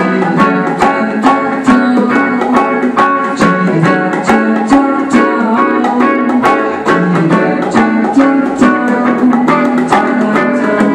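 Live band music: electric guitar and electric bass playing over hand percussion that keeps a quick, even beat of strikes.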